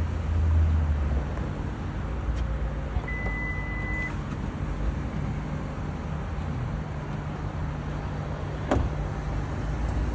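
Steady low rumble of a 2024 Honda CR-V running. A single beep lasts about a second, about three seconds in, and a sharp click comes near the end.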